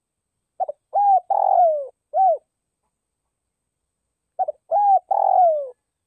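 Spotted dove giving its calling coo: two phrases of three or four short coos each, about four seconds apart, the longest note in each sliding down in pitch.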